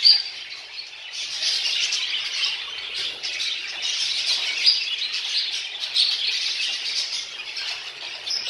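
Many breeding Texas Jumbo budgerigars chattering and chirping together without a break, with a sharper call right at the start.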